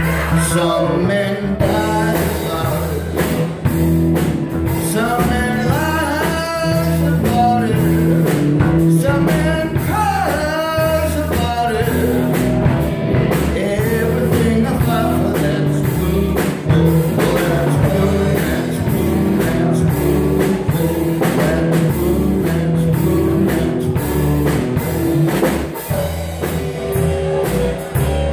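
Live blues band playing: a male voice sings over electric guitar, bass guitar and drum kit. The singing is in the first part, then the band carries on instrumentally with guitar lines.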